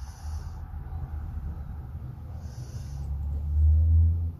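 A person breathing heavily through the nose close to the microphone: a hissing breath about every two and a half seconds over a low rumble of breath on the mic, loudest near the end.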